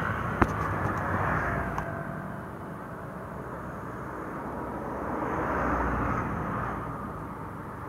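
Riding noise from a motor scooter on the road: a steady rush of engine, tyre and road noise that swells twice, about a second in and again around six seconds, as other traffic passes.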